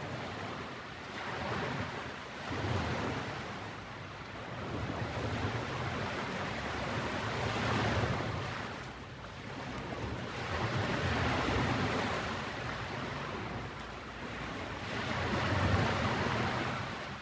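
Ocean waves breaking and washing up on a beach, swelling and ebbing every few seconds.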